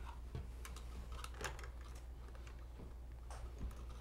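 Faint, irregular small clicks and ticks of hands handling electrical wires and a wall switch during wiring, over a low steady hum.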